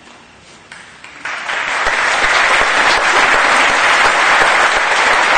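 Audience applauding, starting about a second in and swelling quickly to steady applause.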